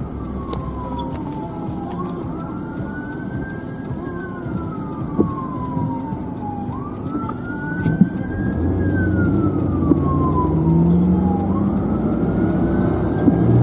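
A siren wailing, its pitch climbing and then sliding slowly back down about every five seconds, over the running of a vehicle engine that grows louder in the second half.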